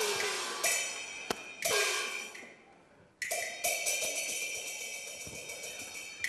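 Cantonese opera percussion accompanying a stage fight: cymbal crashes and a gong stroke whose pitch bends down as it rings, with one sharp click a little over a second in. The strokes fade to near silence around three seconds in, then fresh cymbal crashes ring out.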